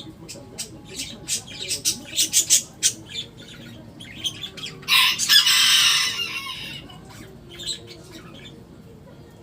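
Pet birds calling: a quick run of short, sharp high-pitched calls, then a loud harsh squawk or burst lasting over a second, about five seconds in, with a few scattered calls after.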